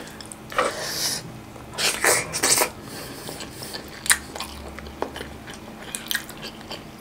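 Close-miked chewing of chicken in spicy tomato sauce: wet mouth sounds in a few short bursts, with one sharp click about four seconds in.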